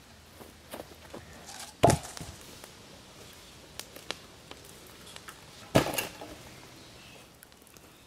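Two heavy wooden thuds about four seconds apart as armloads of cut logs are dropped on the ground, the second with a brief clatter of logs settling. Lighter cracks and footsteps come in between.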